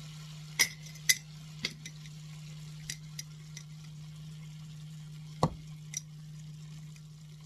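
Chickpea flour being tipped from a glass jar into a pan of cooking vegetables: a string of sharp clicks and knocks of glass and utensils against the pan, the loudest a duller knock about five and a half seconds in, over a steady low hum.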